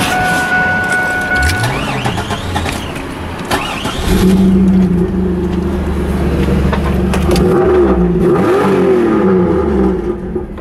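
A car engine runs loudly from about four seconds in, its pitch dipping and then rising again near the end as it is revved. A steady high tone sounds over the first couple of seconds.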